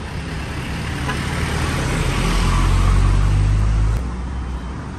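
Street traffic with a truck engine running close by. It grows louder for about three seconds, then drops off abruptly about four seconds in.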